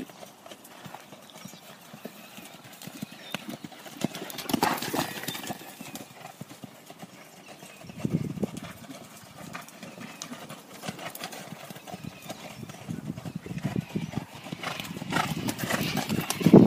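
Hoofbeats of a horse cantering on a soft sand yard under a rider, a steady run of dull thuds that grows loudest near the end as the horse passes close.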